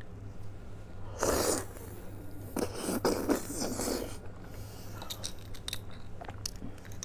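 Close-miked slurping and chewing of soft beef bone marrow, with a loud suck about a second in and more wet mouth sounds after it. Small clicks and scrapes of a thin metal spoon digging marrow out of the bone follow near the end.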